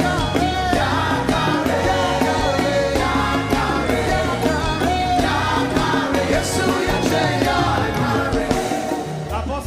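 Upbeat gospel music with singing voices over a steady, pulsing bass line.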